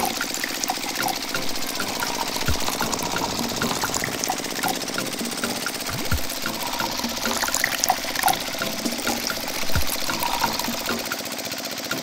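Liquid trickling and dripping from a small spout into a tiny plastic bucket, over a steady mechanical hum, with a few soft low thumps.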